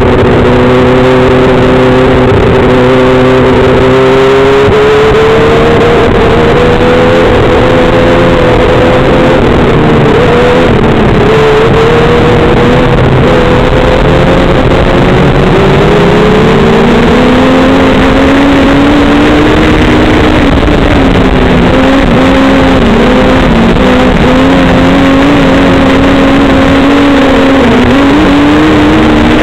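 Compact speedcar's engine running hard in a race, heard loud and close from a cockpit-mounted camera. Its pitch climbs and dips several times as the driver works the throttle through the turns.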